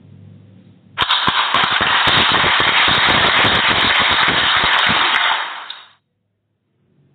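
A sound effect from the quiz app just after an answer is chosen: a sudden, loud burst of dense crackling noise that lasts about five seconds and then fades out.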